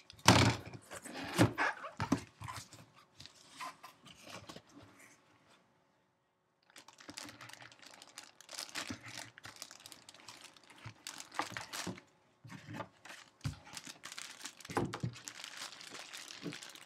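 A sealed cardboard box being torn open and its flaps pulled back, loudest in the first two seconds, then the crinkling of a plastic bag as a jersey sealed inside it is handled. The sound drops out completely for about a second midway.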